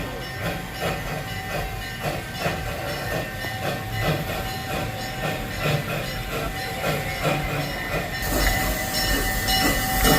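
Theme-park excursion train rolling along, its wheels clacking over the rail joints in a steady rhythm of about two to three a second over a low rumble, with a hiss coming in near the end.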